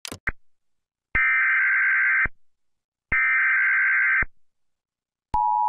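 Mock Emergency Alert System broadcast tones: two one-second bursts of screechy data noise, the SAME alert header, about two seconds apart, then near the end the steady two-tone attention signal starts.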